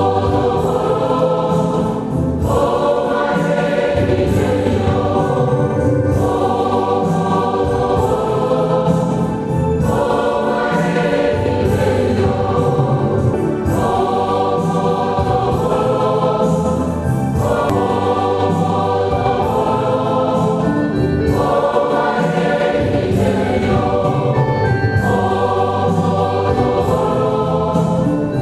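Choir singing a hymn in phrases a few seconds long, over a steady low sustained part.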